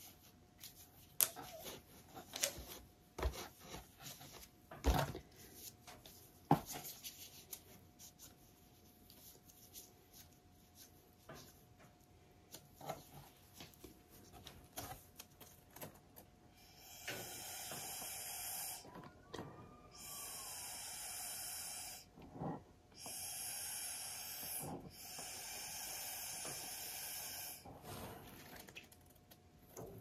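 Breath blown through a drinking straw onto wet acrylic paint: a run of hissing puffs about two seconds long each, with short pauses for breath between them, starting a little past halfway. Before that, scattered light taps and clicks.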